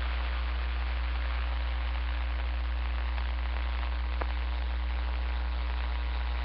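CB radio receiver hissing with static between transmissions, over a steady low hum. A single faint click about four seconds in.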